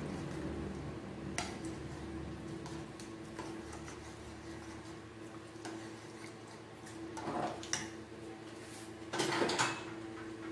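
A utensil stirring a liquid marinade with sliced onions in a bowl: light clinks against the bowl, then two louder scraping, clattering bursts in the second half.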